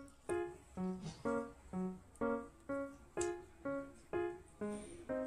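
Background music: a light keyboard tune in bright, short notes, about two a second at an even pace.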